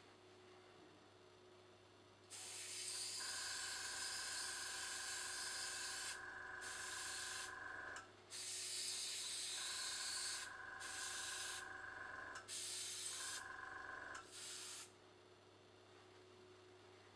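Dual-action airbrush hissing as it sprays acrylic paint in several long spurts with short breaks. Under the spray, a small tankless compressor runs three times with a steady whine and a low pulsing hum, stopping in between.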